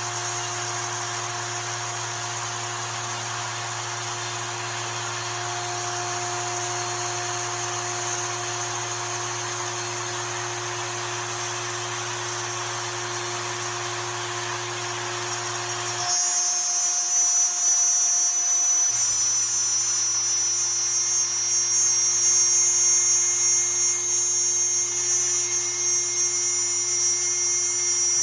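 CNC machine running with a steady motor whine and hum. About 16 s in the sound changes: the low hum stops for a few seconds, then returns along with higher whining tones.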